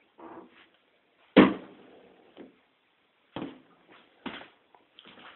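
A sharp knock about a second and a half in, trailing off briefly, then a few lighter knocks and bumps.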